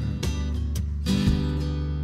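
Acoustic guitar strummed in a slow song, a few strokes with the chords left ringing between sung lines.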